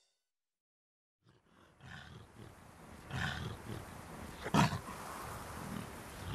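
Wolves growling: a low, rough growl that starts after about a second and a half of silence and builds, with one sharp, loud burst a little past the middle.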